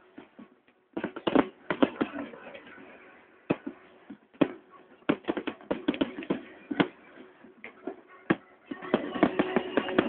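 Aerial fireworks shells bursting overhead: an irregular run of sharp bangs and crackles, thickest near the end.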